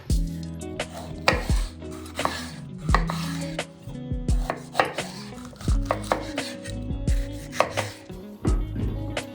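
Knife chopping on a cutting board: about a dozen sharp, irregular strikes, roughly one or two a second, over soft background music.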